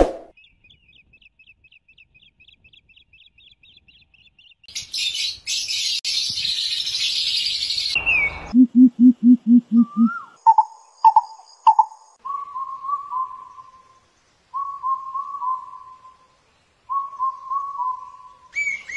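A string of wild animal calls, mostly birds. First comes a fast, high trill, then a loud hissing buzz lasting about three seconds. After that there is a quick run of six low hoots, and then short whistled phrases repeated several times near the end.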